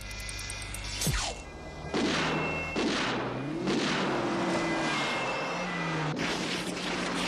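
Film soundtrack of a car chase on ice: music with held notes under sound effects. A sharp falling whoosh comes about a second in, then a series of loud swishes from cars sliding and racing on the ice.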